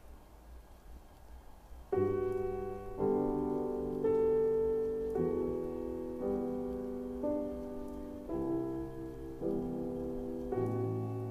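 Solo piano music in a contemporary classical style: sustained chords struck about once a second, each left to ring and fade, starting about two seconds in after faint low background noise.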